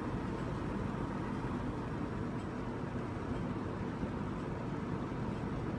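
Sears (Lasko) model 8121 20-inch box fan running steadily on low speed: an even rush of air from the blades with a faint hum from the plastic-housed motor.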